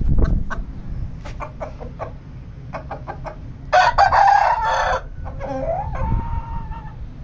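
Game rooster crowing once, about three and a half seconds in: a loud call that breaks briefly and ends in a drawn-out, steady final note. A few short clucks come before it.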